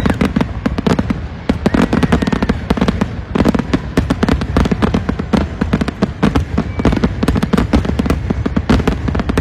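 Aerial fireworks going off in a dense, continuous barrage: many sharp cracks and bangs each second over a steady low rumble of booms.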